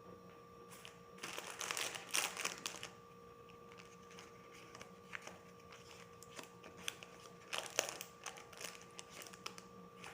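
Crinkling and rustling of craft materials being handled, in two short bursts with scattered small clicks and taps between them.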